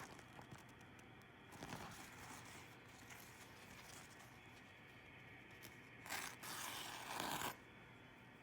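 A very sharp knife edge slicing through a thin material, making a tearing scrape: one short cut about two seconds in and a longer, louder one from about six to seven and a half seconds.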